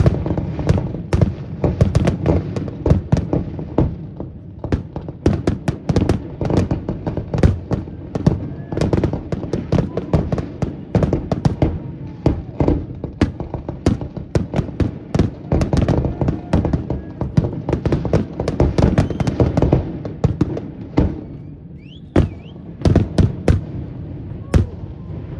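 Aerial fireworks finale: a dense barrage of shells bursting several times a second, with continuous low rumbling booms. Near the end it thins to a few separate loud bursts.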